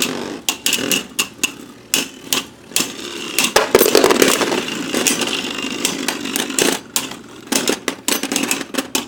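Beyblade Burst spinning tops, one of them Revive Phoenix, whirring in a plastic stadium and clashing, with many sharp irregular clacks as they hit each other and the stadium walls.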